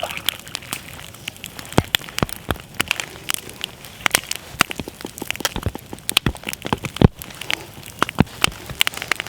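Wood campfire crackling, with frequent sharp, irregular pops.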